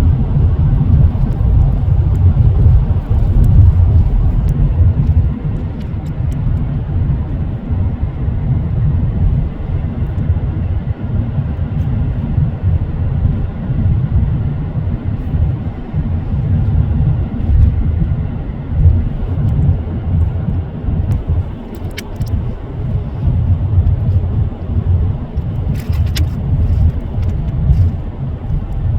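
Car travelling on the road: a steady low rumble of engine and road noise, with a couple of faint ticks late on.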